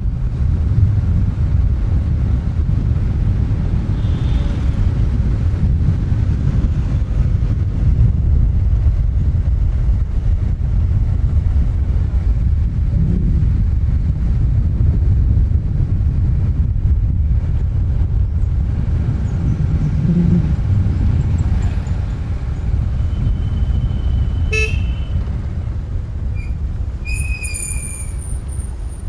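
Heavy road traffic heard from a moving bike: a steady low rumble of engines and road noise, with a few short vehicle horn toots in the last five seconds.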